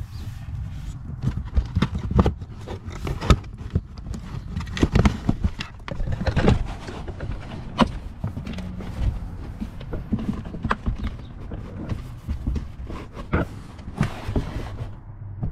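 Hands working a car's plastic interior side trim panel loose and pulling back the footwell carpet: irregular clicks, knocks and rubbing, the plastic clips letting go.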